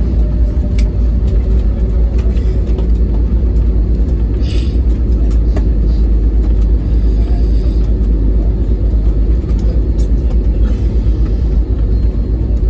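Airbus A320neo engine and airflow noise heard inside the cabin: a loud, steady, deep rumble. A short hiss cuts in briefly about four and a half seconds in.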